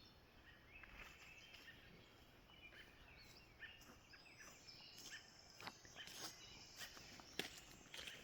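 Near silence: faint outdoor ambience with a few scattered, distant bird chirps and faint clicks.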